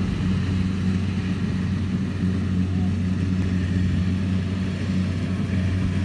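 Kubota rice combine harvester's diesel engine running with a steady low drone as it works the field.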